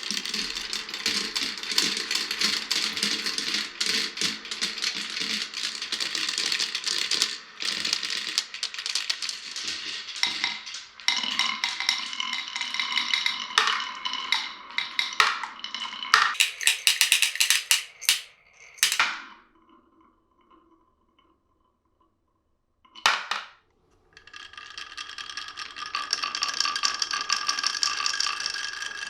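Glass marbles rolling and clattering down a wooden marble run, a dense run of clicks and clacks that thins out after about 19 seconds. Then comes a near-silent gap broken by a single clack. Near the end a steady rolling with a ringing hum builds up.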